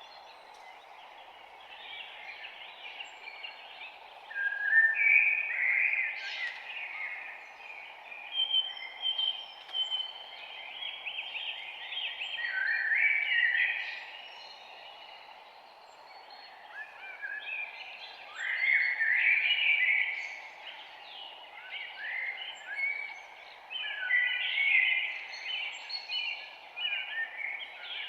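Several birds singing and chirping in overlapping phrases, over a steady background hiss.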